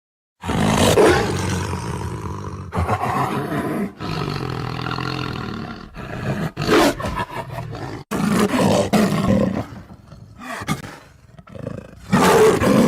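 Tiger roaring, a string of separate roars and rumbling calls joined with abrupt cuts between them; a quieter stretch comes before a last loud roar near the end.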